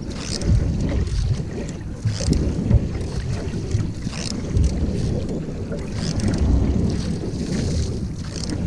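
Canoe paddling: paddle strokes splashing in the water about every two seconds, over a steady rumble of wind on the microphone.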